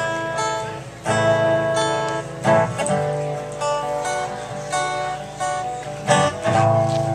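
Guitar playing a song's opening, chords struck every second or so and left to ring.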